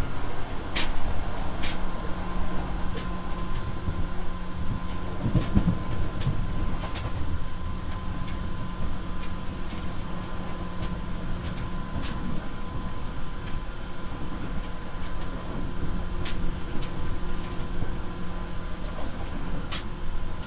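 Running sound inside a Seibu 301 series resistance-controlled electric train's motor car: a steady rumble of wheels and running gear with a constant low hum and a steady higher tone. Sharp clicks come at irregular intervals, and a brief swell of heavier rumble comes about five seconds in.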